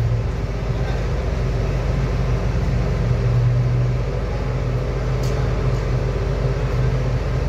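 Steady low drone of a moored ro-ro ferry's engines running at the quay, with one faint short click about five seconds in.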